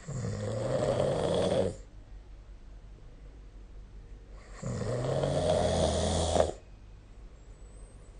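A sleeping person snoring: two snores, each lasting just under two seconds, at the start and about four and a half seconds later.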